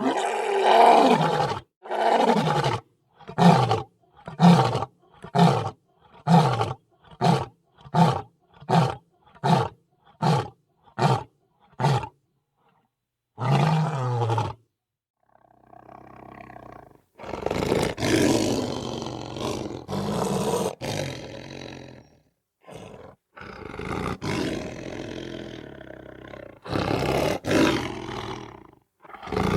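Lion roaring: one long opening roar, then a series of about a dozen short grunting roars that come a little faster as they go. After a pause come more, longer and rougher roaring calls.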